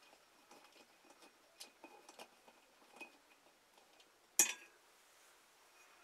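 Faint scattered ticks and light clinks of a textured glass light globe and its metal fittings being handled as the globe comes off a ceiling fixture, with one sharp clink about four and a half seconds in.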